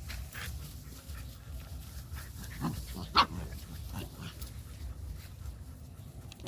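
A dog giving a few short, sharp calls, the loudest just over three seconds in.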